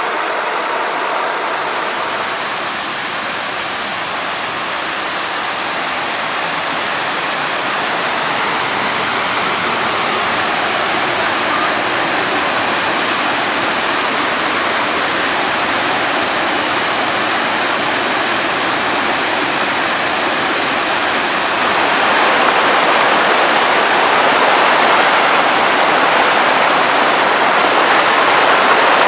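Waterfall, its falling water making a steady rushing noise that swells a little louder about two-thirds of the way through.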